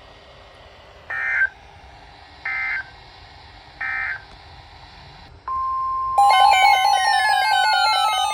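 Emergency Alert System header on NOAA Weather Radio: three short warbling data bursts, then about five seconds in the steady 1050 Hz warning alarm tone starts, signalling a new warning. Just after, a louder pulsing electronic alarm with repeated falling sweeps sounds over it.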